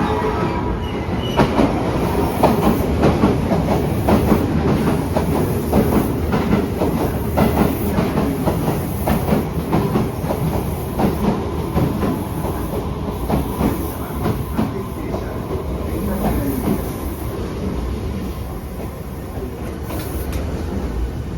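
Hankyu commuter train running on the rails, a steady rumble with repeated clacks of the wheels over rail joints, easing off a little toward the end.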